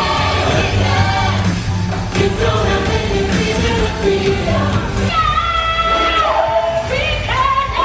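Stage-show music played over a theatre sound system: a pop track with a steady beat, and about five seconds in a singer holds long notes that slide downward.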